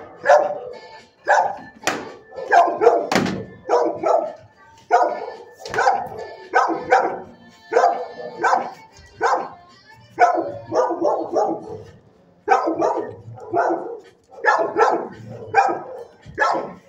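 A shelter dog barking over and over, about one or two barks a second, with a couple of short pauses.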